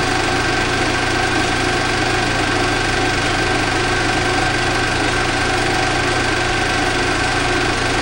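16mm film projector running: a steady, unchanging mechanical hum with several constant tones.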